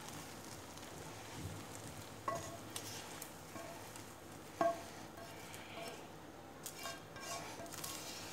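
A spatula scraping fried goat brain out of a non-stick frying pan onto a plate, over a faint hiss of oil sizzling in the pan. Two sharp taps of the spatula come about two seconds in and about halfway through; the second is louder.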